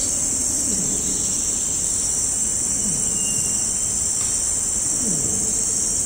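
Distant adult male Bornean orangutan long call winding down: three low calls, each falling in pitch, about two seconds apart. A steady high-pitched drone of rainforest insects runs underneath.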